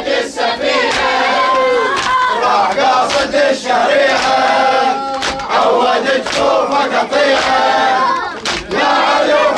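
A large crowd of mourners chanting a lament refrain in unison, many voices together. Sharp strikes land about once a second under the singing, keeping the beat.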